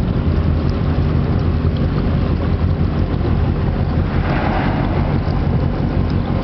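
Boat engine running steadily with a low rumble, with wind noise on the microphone; a brief rise in hiss about four seconds in.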